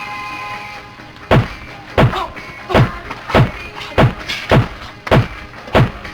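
Background music: a held chord for about the first second, then a steady kick-drum beat, about three beats every two seconds.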